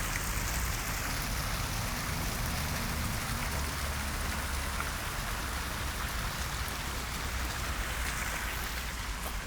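Polluted water pouring steadily out of an outlet into a stream, a constant splashing hiss.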